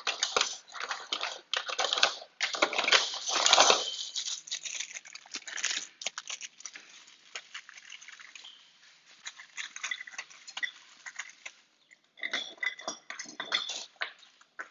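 Rustling and small clicks of hands handling a new door knob set's parts and screws, loudest in the first few seconds, then lighter scattered clicks, with another flurry near the end.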